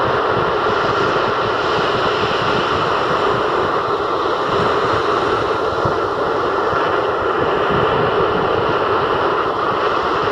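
Surf of a rough sea breaking and washing along a sandy shore: a loud, steady rushing noise with no separate wave crashes standing out.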